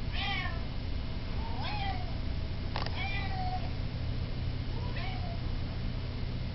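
Domestic cat meowing four times, short calls that fall in pitch, over a steady low hum of running air conditioning.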